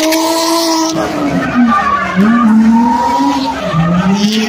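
Drift car engine revving hard through a slide, its pitch rising and falling several times as the throttle is worked, with the tyres sliding on the asphalt.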